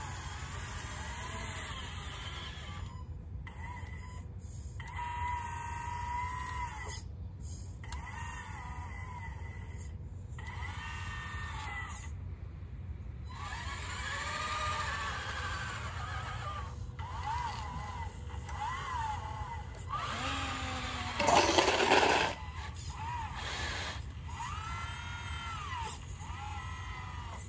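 Electric motors of a 1:14-scale RC Caterpillar 988 wheel loader whining, the pitch rising and falling again and again as the controls are worked, over a steady low hum. About three quarters of the way through comes a louder, rough burst of noise lasting about a second.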